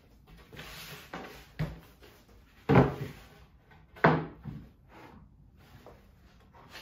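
Sheet of 3/4-inch plywood lowered onto a 2x4 workbench frame and shifted into place: a brief scraping slide, then a few wood-on-wood knocks, the loudest about three seconds in and another about a second later.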